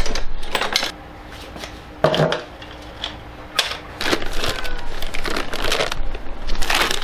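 A red plastic bag crinkling and rustling as hands open it out inside a steel pot, from about four seconds in. Before that, a brief clatter and two sharp knocks in a quieter stretch.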